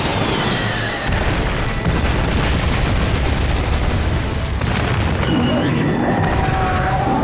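Sound effects of a monster battle: a loud, continuous rumble of explosions, with background music under it.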